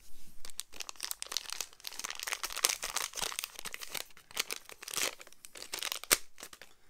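Clear plastic bag crinkling and crackling as hands work it open to take out a small metal part, with a run of sharp crackles and the loudest snap near the end.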